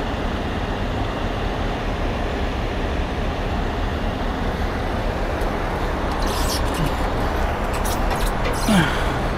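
Steady low rumble of a heavy rotator tow truck's diesel engine running, mixed with freeway traffic noise. Near the end come a few light clicks and one louder knock as rigging hardware is handled.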